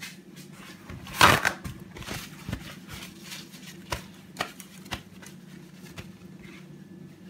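Small handling noises: a short rustle about a second in, then a few faint clicks and taps, over a steady low hum.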